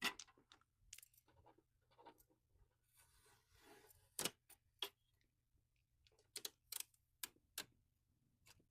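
Sparse light clicks and knocks of plastic being handled, with a brief rustle about three seconds in: protective packing tape and pieces being removed from a new Epson SureColor F170 printer.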